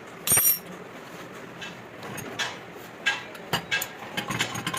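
Metal clinks and knocks of work on metal parts. There is one short, loud, high-pitched metallic ring about a third of a second in, then several sharp clinks in the second half, over a steady low background hum.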